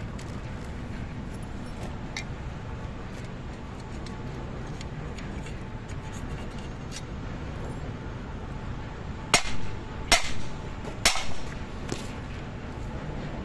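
Small light metal clicks of circlip pliers and circlips being worked onto a steel chain-link pin, then three sharp metal-on-metal clinks with a short ring, and a fainter fourth, near the end.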